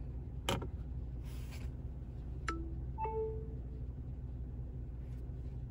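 An iPhone snapping onto a MagSafe magnetic charger with a click, then about two seconds later the phone's charging chime: a few short clear tones, the last held longest.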